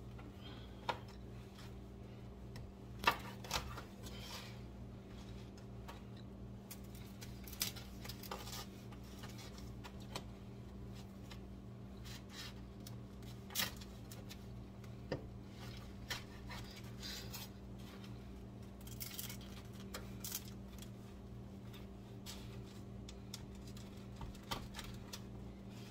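A knife cutting crusty bread loaves on a wooden cutting board: scattered crunches of the crust and knocks of the blade on the board, over a steady low hum.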